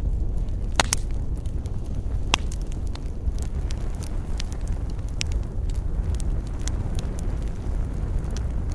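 Wood campfire burning: a steady low rush of flames with scattered sharp crackles and pops, the loudest a close pair about a second in and another a little after two seconds.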